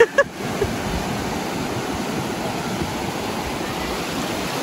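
Sea surf washing in the shallows, a steady rushing sound of breaking waves and foam.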